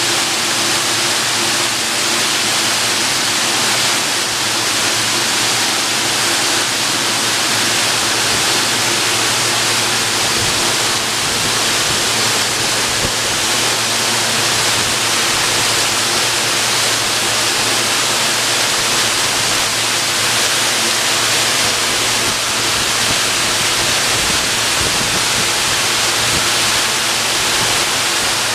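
Automatic car wash gantry spraying high-pressure water over a car, a loud steady hiss of spray and water drumming on the bodywork. A faint steady machine hum runs underneath.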